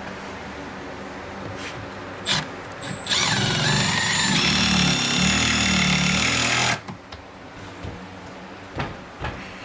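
Cordless drill running for about three and a half seconds, drilling into the cabinet frame: it spins up with a rising whine, holds steady, then stops abruptly. A few light knocks before and after.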